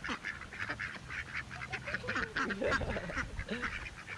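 A flock of domestic ducks quacking and chattering close by, a constant busy chorus of short overlapping calls, as they crowd in begging for food.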